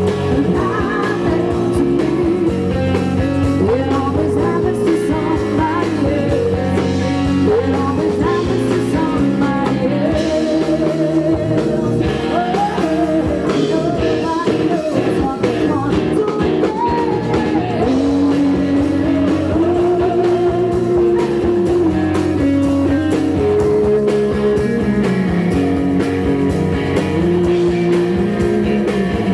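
Live rock band playing loud through a PA: electric guitars, bass guitar and drum kit, with a melodic lead line that slides up and down in pitch over them.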